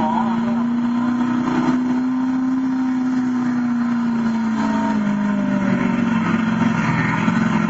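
Diesel pickup truck engine running at full throttle while pulling a weight-transfer sled: its note holds high and steady, then sags gradually in the second half as the sled's load builds.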